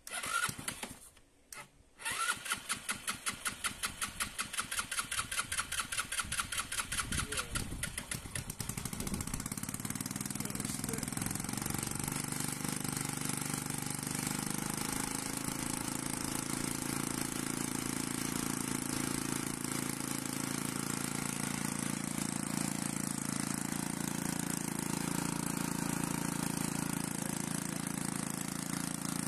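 Scooter engine on electric start running on homemade petrol distilled from waste plastic bottles. A brief turn of the starter, a pause, then about six seconds of rhythmic cranking before the engine catches and settles into a steady idle.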